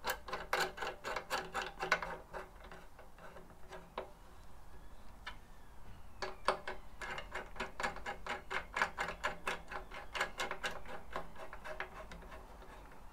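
Small metal tool clicking rhythmically as screws are wound in with a hex key: quick ticks, about four to five a second, in two runs, the first over the opening two seconds and a longer one from about six to twelve seconds in.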